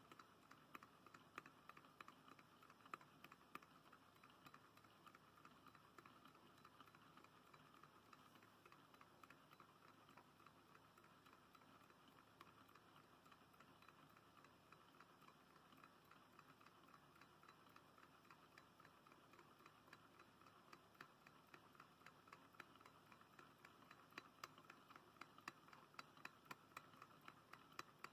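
Faint, rapid ticking of a low-temperature-difference Stirling engine running, the small clicks of its piston and crank mechanism over a quiet hiss.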